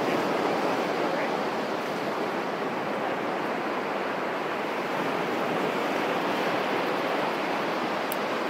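Ocean surf breaking on the beach: a steady, even rush of waves.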